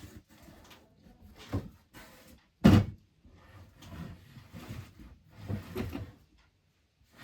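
A series of knocks and thumps like things being handled, moved or set down, with one loud sharp thump a little under three seconds in.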